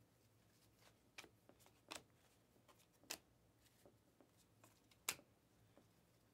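Faint swishes and snaps of Panini Mosaic trading cards being slid one at a time off a stack in the hands. There are about four distinct strokes, the loudest about five seconds in.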